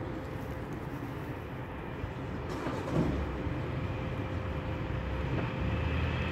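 Low rumble of a train approaching the station, growing louder over the last second or so, under a steady faint hum.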